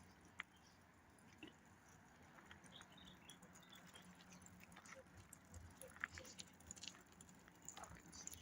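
Near silence: faint room tone with a low hum and scattered small clicks and taps.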